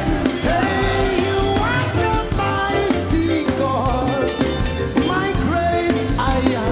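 Live gospel worship music: a sung melody with sliding, ornamented notes over a band with bass and drums.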